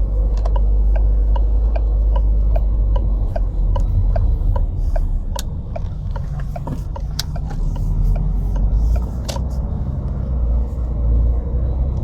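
Car engine running steadily with a low rumble, and a regular light ticking about two to three times a second over it.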